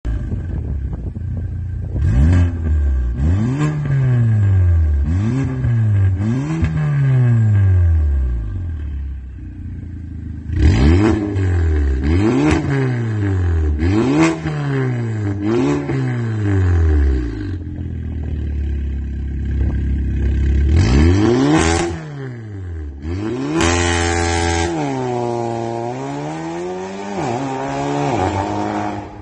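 Porsche Macan 2.0T's turbocharged four-cylinder engine through a catless ARMYTRIX valved exhaust, revved in quick rises and falls in two sets of four, with sharp cracks on some of the revs. Near the end it holds at high revs for a second or two, then drops and climbs again.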